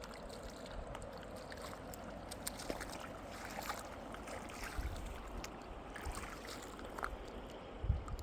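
River water running steadily, with scattered clicks and splashes and a couple of low thumps, the louder one near the end.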